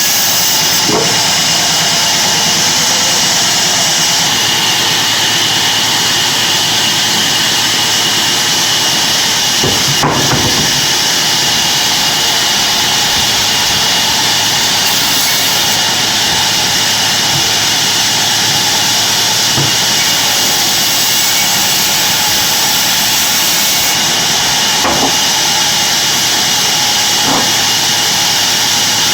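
Sawmill bandsaw running, a loud steady hiss, with a sharp knock about ten seconds in and a few fainter ones later.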